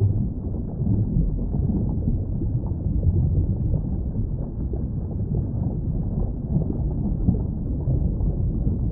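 Underwater ambience: a steady, muffled low rumble with no high sounds at all.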